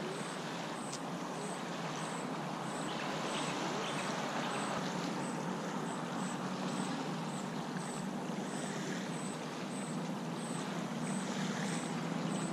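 Small lake waves lapping steadily on a sandy shore, over a steady low hum. A faint high chirp repeats about twice a second.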